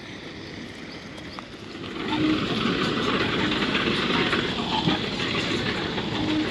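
A motor vehicle's engine and tyre noise, growing louder about two seconds in and staying loud.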